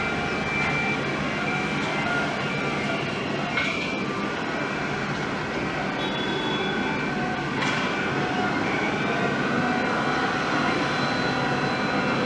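Jet engines of a Boeing 767-300ER running steadily: an even rush of engine noise with several high, steady whining tones on top.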